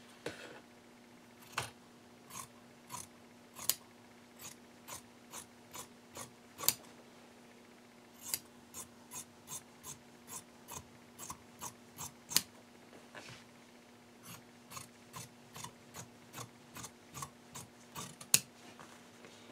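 Fabric shears cutting through fabric, a steady run of short snips with the blades clicking shut, about two a second with a brief pause near the middle. A faint steady hum lies underneath.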